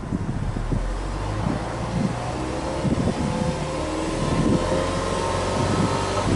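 Subaru Legacy Touring Wagon Blitzen's EJ20 flat-four exhaust, heard at the tailpipes as the engine is revved in neutral. The pitch climbs slowly for about three and a half seconds before the throttle is let off near the end. Wind buffets the microphone throughout.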